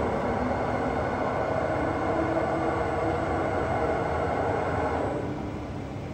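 Schiess Froriep 40 DZ U CNC vertical turning lathe running under power: a steady mechanical hum with a few held tones, dropping off about five seconds in.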